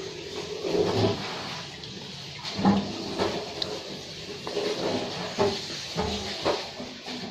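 Kitchen knife slicing raw chicken fillet into small pieces on a cutting board: irregular soft thuds and knocks of the blade against the board, several times a second or so apart.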